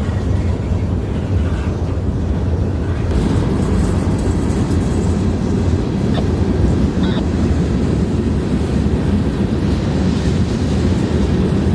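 Freight train rolling past: a steady, loud rumble of wheels on rails, with a couple of faint short squeaks near the middle.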